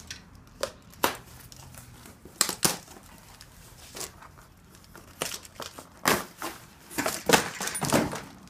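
Cardboard packaging and plastic wrap being handled: scattered scrapes, rustles and knocks of cardboard inserts and crinkling plastic, busiest in the last two seconds or so.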